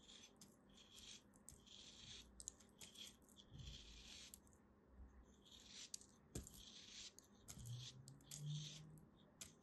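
Small blade cutting through a molded block of packed kinetic sand: a run of faint, crisp grainy scrapes and crunches, one after another, with a few sharp clicks. A short low hum near the end.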